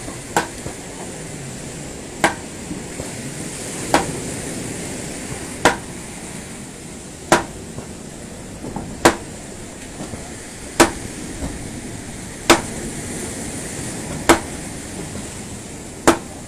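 Ten sharp clanks of a metal hand tool striking concrete, one about every second and three quarters, as the concrete footing of a wooden post is broken up. A steady wash of surf runs underneath.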